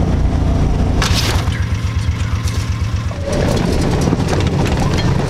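Side-by-side utility vehicle driving over a rocky dirt trail: its engine runs with a low pulsing rumble while the tyres crunch over loose stones and the body knocks and rattles. There is a sharp crack about a second in, and the crunching gets louder and busier after about three seconds.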